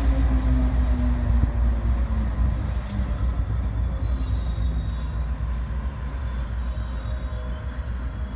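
BNSF GE AC4400CW diesel locomotive on the rear of a Metrolink train pulling away past the platform: a heavy low rumble with its engine note sliding slowly down in pitch as it recedes, growing gradually quieter, with a thin steady high squeal from the wheels.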